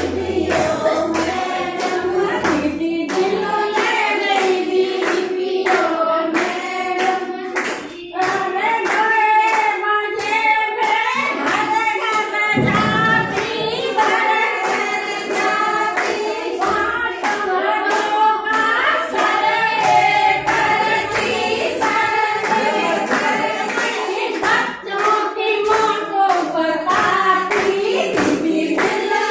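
A group of women singing a song together, keeping time with regular hand claps.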